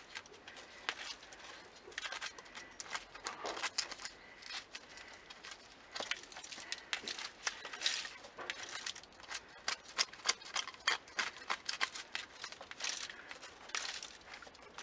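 Soil being scraped and scratched out of a small pot with fingers and a thin metal rod, in short irregular scratching strokes, while carefully digging down to uncover the roots of an air layer.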